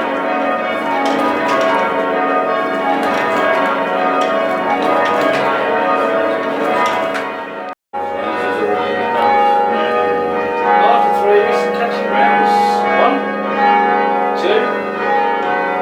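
Church tower bells rung in changes, many overlapping bell strokes ringing on one another. The sound cuts out for an instant about eight seconds in, then the ringing goes on.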